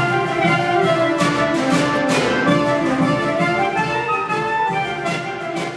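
Klezmer band playing live: soprano saxophone and clarinet carrying the melody over accordion, double bass and drum kit. The music gets quieter near the end.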